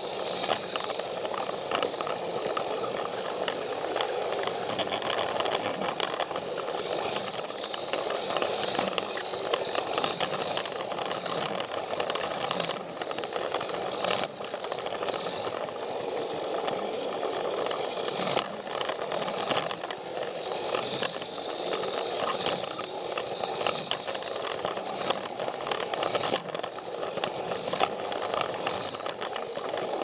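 A battery-powered Plarail toy train running on plastic track, heard up close from on board. Its small motor gives a steady high whine under constant rattling and frequent small clicks from the wheels and gears on the track.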